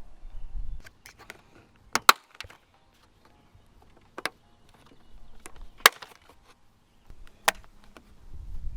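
Sharp clicks and knocks as the fender liner's plastic clips and fasteners are worked loose and handled: a quick double snap about two seconds in, then single ones around four, six and seven and a half seconds in, the loudest at about two and six seconds.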